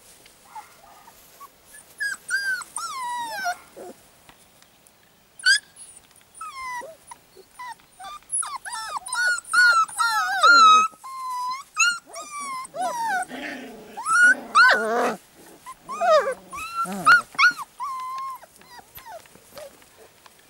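Young puppies whining and yelping: a run of short, high, sliding cries, one after another from about two seconds in until near the end.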